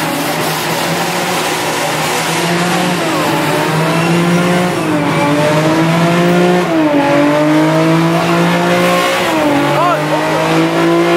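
Car engine held at high revs, its pitch swelling up and down every second or two, over a steady hiss of spinning tyres: a car doing a burnout.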